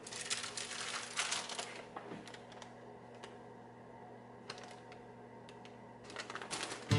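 Light crackling and scattered clicks of parchment paper being handled, busiest in the first two seconds and again near the end, over a faint steady hum.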